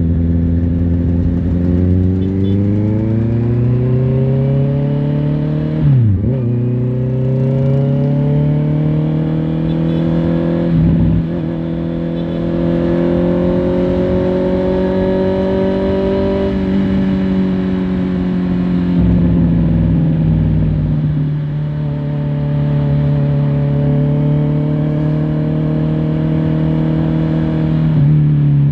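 Honda CBR650R's inline-four engine pulling hard, its pitch climbing for the first half with a quick gear change about six seconds in. It then eases off and runs at steady cruising revs.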